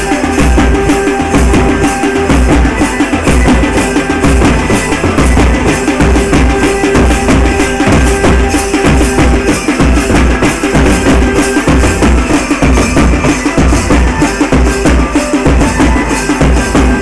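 Live Indian band-baja music: a large bass drum and side drums beat a steady rhythm under an electronic keyboard melody.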